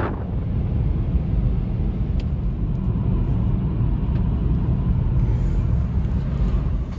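A car driving along a road, heard from inside the cabin: a steady low rumble of tyre and engine noise.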